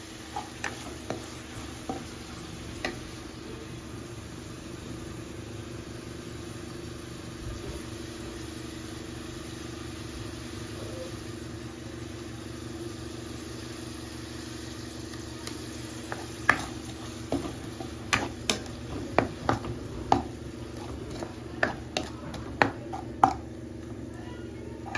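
Tomatoes and onions sizzling in a frying pan while a plastic spoon stirs them, knocking against the pan: a few taps near the start, then a quick run of sharp taps in the last third. A steady hum runs underneath.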